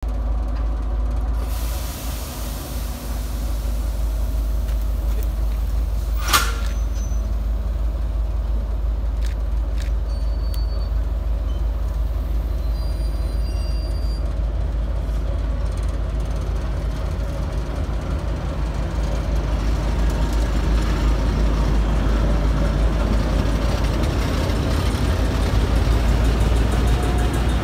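Diesel engine of a DM62 locomotive running with a steady low drone as the locomotive rolls slowly up and past, growing louder near the end. A brief hiss of air comes a couple of seconds in, and a single sharp click about six seconds in.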